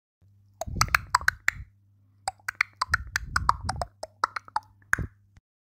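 Intro sting of quick, sharp percussive hits in a fast, uneven rhythm over a low steady hum. It starts and stops abruptly.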